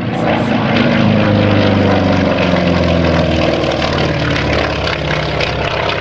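Grumman Wildcat's radial engine and propeller flying past low and loud: a steady drone whose pitch drops a little about two seconds in as the fighter goes by.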